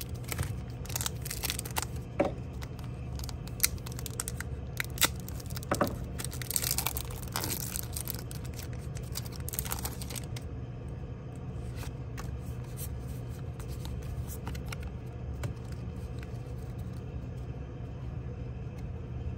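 A crinkly plastic Pokémon Astral Radiance booster pack being torn open and crumpled for about the first half. The cards are then slid and flipped one by one with soft, sparse clicks, over a steady low hum.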